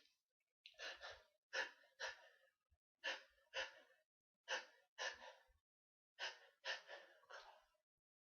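A person's short, gasping breaths between fits of sneezing, coming in pairs about every second and a half, with quiet between them.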